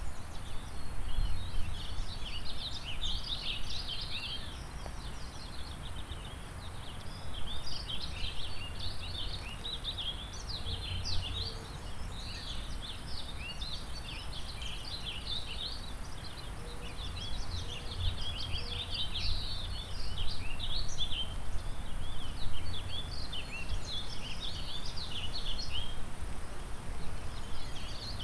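Several songbirds singing in a springtime forest: a dense chorus of quick, high chirps and trills, over a steady low rumble of wind and the river.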